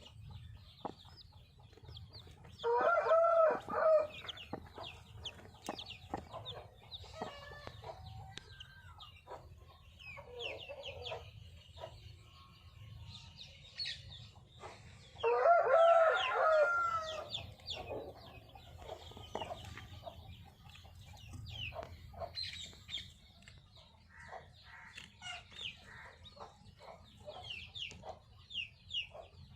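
Rooster crowing twice, about three seconds in and again around the middle, over hens clucking and the short high peeps of chicks.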